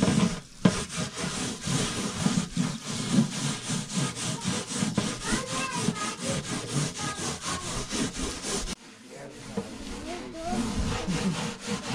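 Hands scrubbing a wet, textured round metal tray: quick, rhythmic rasping strokes, quieter after about nine seconds.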